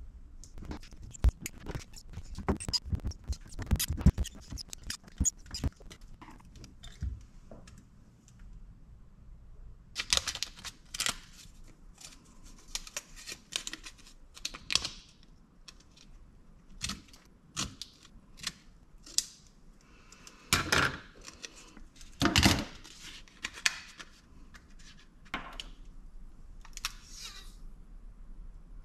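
Hands working on a pack of 21700 lithium-ion cells: clicks and knocks of the cells and tools on a wooden desk, with stretches of rustling and tearing from tape and insulating paper being handled. The loudest rustles come around the middle and about two thirds of the way in.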